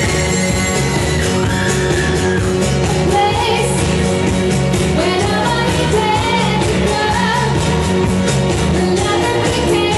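Pop song with a singer over a steady, driving beat, played loud.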